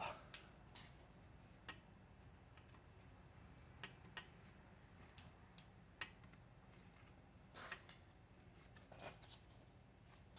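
Faint, scattered metallic clicks and taps from hand tools and engine parts being handled, against near silence.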